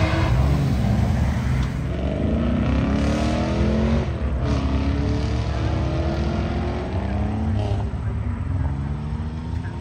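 Car engine accelerating hard, its pitch climbing and dropping back several times as it shifts up through the gears, growing gradually quieter as it pulls away.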